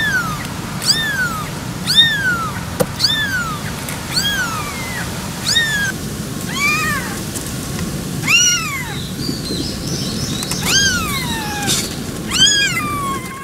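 Newborn kitten, eyes still closed, crying over and over: about a dozen high, thin mews that each rise and fall in pitch, about one a second at first, then more spaced out. A steady low background noise runs underneath.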